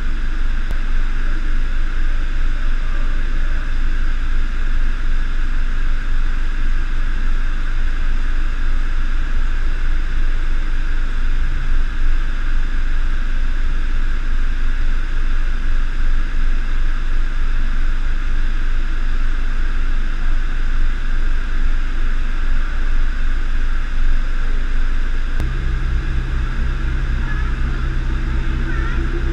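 Steady low engine rumble, like a car idling, without change until about 25 seconds in, when a deeper, stronger steady hum sets in suddenly.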